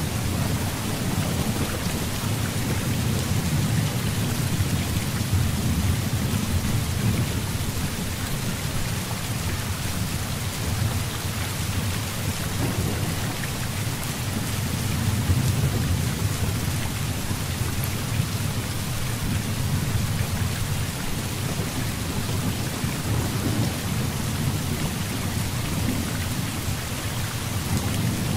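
Heavy rain falling steadily, with low rolling thunder that swells and fades several times.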